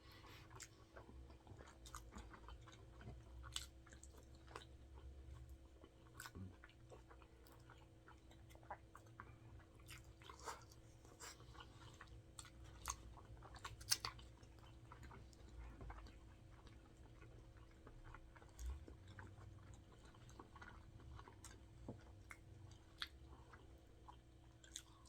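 Faint, close chewing of a cheeseburger, with scattered soft mouth clicks, over a faint steady hum.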